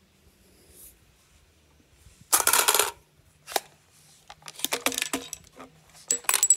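Metal clicking and clattering from handling a jammed .50 Beowulf AR-type rifle's action and cartridges while clearing a feed jam. It starts with a dense metallic rattle about two seconds in, then scattered clicks, the last few with a brief high ring.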